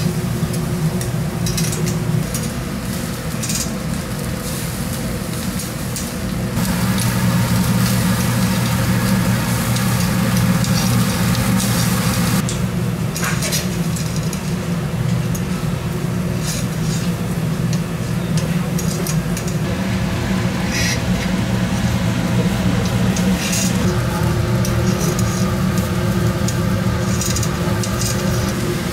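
Busy kitchen sounds: sizzling with frequent clinks and knocks of utensils and dishes over a steady low hum, louder from about a quarter of the way in.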